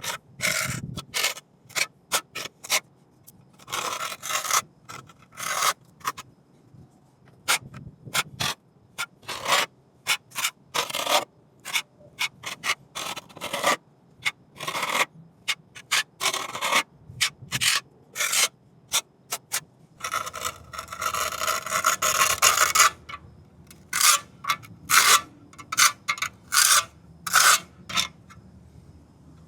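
Margin trowel scraping and smoothing a wet quick-setting cement patch on a concrete curb in many short, irregular strokes, with one longer scrape about twenty seconds in.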